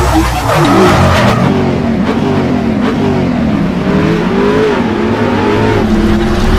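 Car engine revving, its pitch rising and falling again and again over a low rumble.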